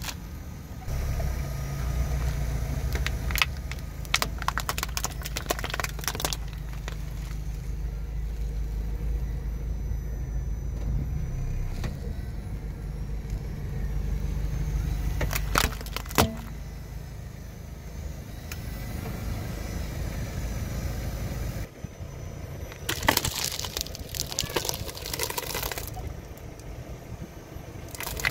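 A car engine running with a steady low rumble as the car's tyre rolls over and crushes plastic toys and objects: a cluster of cracks and crunches a few seconds in, one sharp snap around the middle, and a longer run of crunching near the end.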